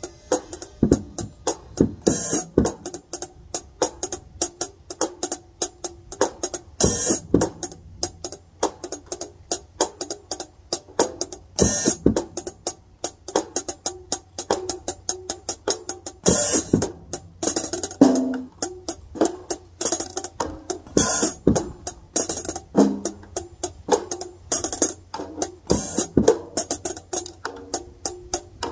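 Drum kit played in a steady medium-tempo groove, a dense run of drum strokes with a cymbal accent every four to five seconds.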